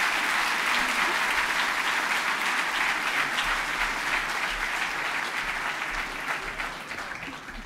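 Large audience applauding, the clapping dying down near the end.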